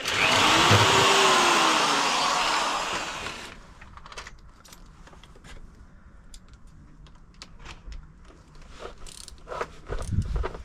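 Power drill running and drilling pilot holes in a thin sheet-metal plate, its motor pitch rising and falling, stopping about three and a half seconds in. Then small clicks and light metallic rattles of the sheet and tools being handled, with a few low knocks near the end.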